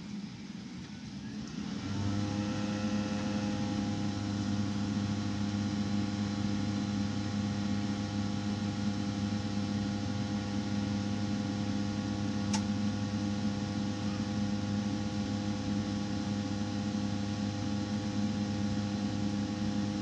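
Rinnai tankless water heater's combustion blower motor spinning up about two seconds in, then running steadily with a loud vibrating hum; a single click about twelve seconds in. The owner takes the vibration for a worn blower bearing, which he thinks is behind the unit's error code 10.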